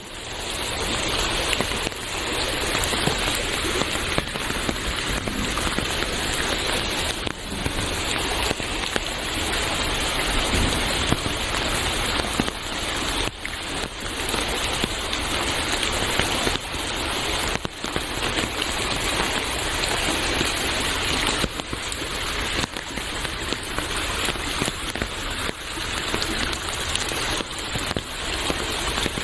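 Steady rain with running water: a dense, even hiss.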